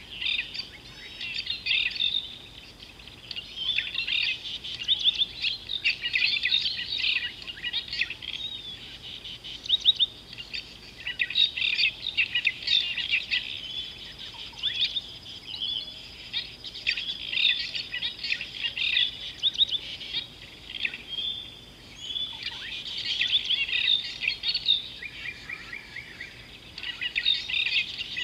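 Birds chirping and calling in a dense chorus, coming in bursts of quick, high notes every few seconds.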